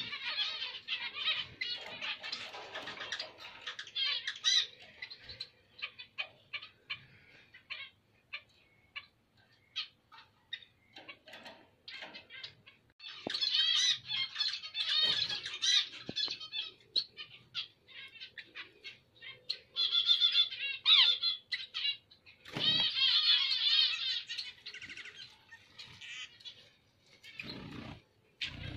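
Caged Bengalese finches chirping, with short bursts of rapid, warbling song between the chirps. There are a couple of low thumps in the second half.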